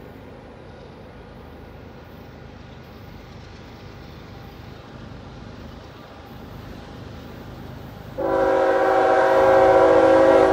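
Low rumble of an approaching freight train growing slowly louder, then a Union Pacific SD70ACE locomotive's air horn sounds one long chord of several notes about eight seconds in, lasting about two seconds.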